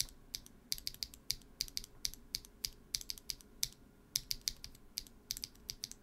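Modified Holy Panda tactile mechanical keyboard switch, a Holy Panda X housing fitted with a Halo True stem, pressed over and over at an uneven pace, about four to five keystrokes a second. Each press is a bright clack, higher-pitched than a thock: a marble typewriter sound.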